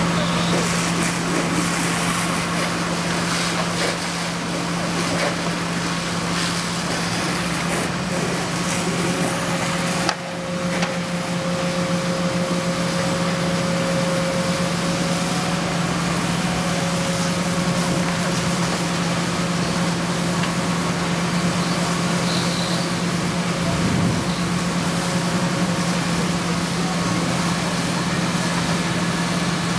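Fire engine's engine running steadily with a constant low drone, under an even hiss.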